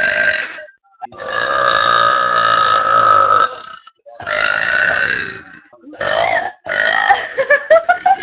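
Loud, long belches from a girl, one after another: one runs on from before and stops just after the start, then come a drawn-out belch of about two and a half seconds and another of over a second. Shorter, choppy ones follow near the end.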